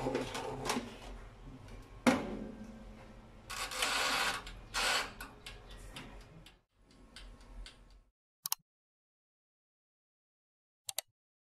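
A metal baking tray sliding onto the wire rack of a small countertop toaster oven and the oven's glass door shutting with a sharp clack about two seconds in, followed by more clattering handling noises. After about eight seconds the sound cuts out, leaving only two short clicks near the end.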